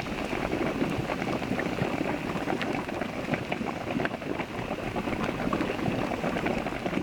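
Water bubbling and splashing steadily, a dense crackle of many small pops.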